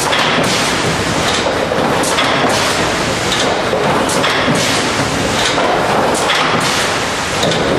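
iPak TF200D tray former running, a steady mechanical clatter with sharp clacks coming about once or twice a second as its forming cycle repeats.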